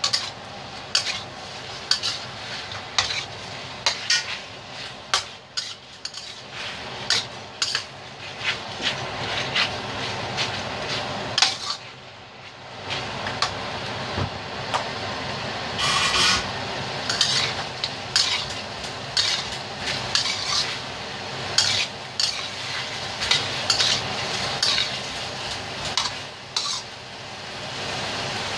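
A metal spoon scraping and clinking against a stainless steel wok as chicken pieces are stirred, over a steady sizzle of frying. The clinks come in quick irregular runs, with a short pause about halfway through.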